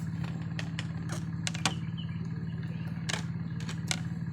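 A steady, low engine-like hum, with a handful of short, sharp clicks and knocks scattered over it.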